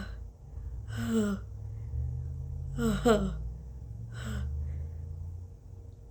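A woman's short, breathy gasps, five in all with two close together in the middle: the catching intakes of breath of a nose tickled toward a sneeze.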